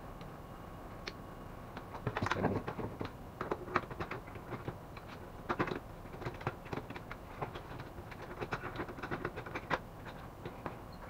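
Irregular clicks, knocks and light rattles of metal and plastic parts being handled and fitted into the open frame of an HP LaserJet 400 M401dn laser printer. The clatter starts about two seconds in and comes in scattered clusters until near the end.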